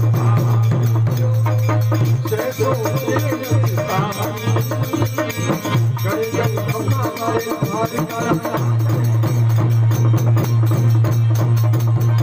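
Rajasthani devotional song played through a PA: a man singing over harmonium, with a dholak drum beating steadily and a strong low drone underneath throughout.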